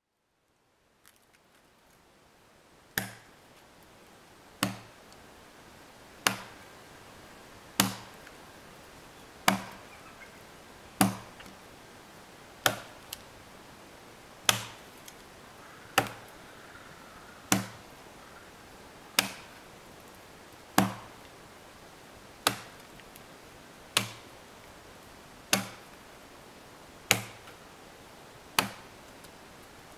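A hand tool chopping into a pine log being hollowed into a dugout canoe. About seventeen sharp blows land at a very even pace, one every second and a half or so, over a steady background hiss.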